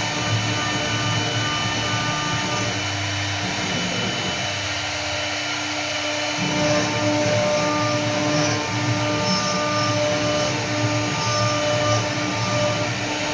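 CNC wood router running, its spindle whining steadily over a rumble of cutting noise as it carves wood; the lower rumble drops away for a few seconds midway, then comes back.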